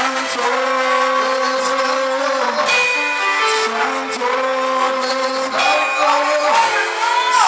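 Live worship music: an electronic keyboard holding sustained chords while a man sings.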